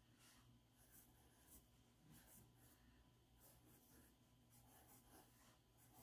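Faint scratching of a pencil on drawing paper, a quick run of short strokes as small shapes are sketched.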